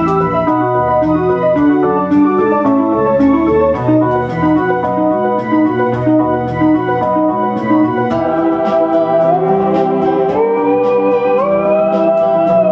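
Electronic accompaniment of organ-like chords and stepping notes over a light ticking beat. About eight seconds in, a Moog Etherwave theremin enters with a sustained tone that slides upward in steps.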